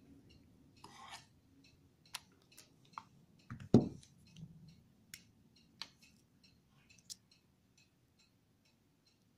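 Hands handling a small metal USB flash drive and its short plastic cable: light clicks and taps, with one louder knock about four seconds in. A steady faint ticking, about two a second, runs underneath.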